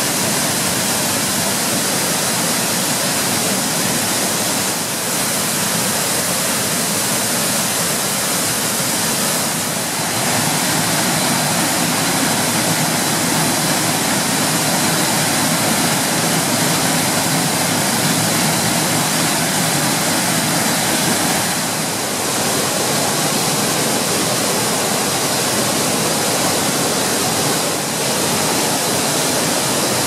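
Small mountain waterfalls cascading over rock: a loud, steady rush of falling water. The level dips or shifts slightly a few times.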